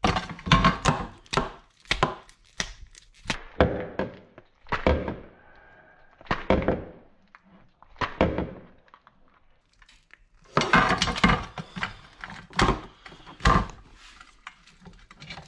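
A large European lobster being handled and killed with a knife on a glass chopping board: irregular clusters of sharp knocks and cracks as its shell and claws hit the board and the blade goes through its head, with a quieter stretch in the middle.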